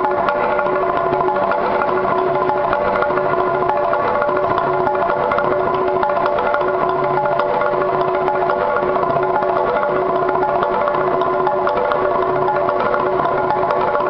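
Txalaparta played by two players: wooden planks on trestles beaten with upright wooden sticks in a fast, unbroken run of strikes, each plank ringing at its own fixed pitch.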